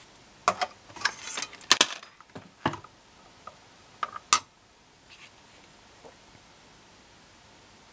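Handling noise: a quick cluster of light clicks and knocks in the first three seconds and one sharp click a little after four seconds, then only a low hiss.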